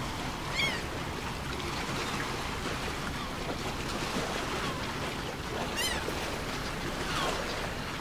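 Steady wash of surf-like noise, with a bird's short arching cry about half a second in and again near six seconds.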